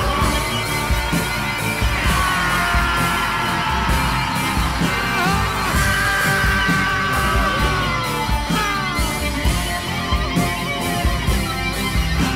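Loud music with a heavy, pounding beat. Several long held notes slide slowly downward through the middle.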